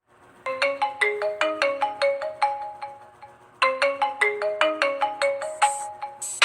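Smartphone ringtone: a short melody of quick, bright notes, played once and then repeated from about three and a half seconds in.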